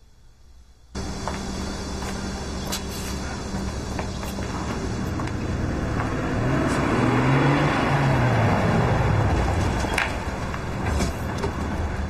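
Motor vehicle engine and road noise that starts abruptly about a second in and builds to its loudest around the middle, the engine pitch rising and falling, with a few sharp clicks.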